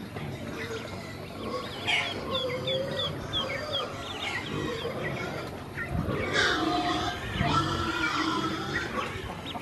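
A group of ducklings peeping while they feed: a run of short, high, falling peeps, then a busier, more varied chorus of calls, with a couple of soft thumps past the middle.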